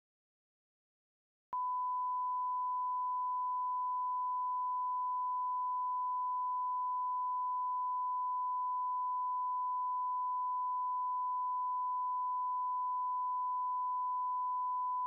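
Steady electronic reference test tone, one pure unchanging pitch, starting abruptly about a second and a half in after dead silence.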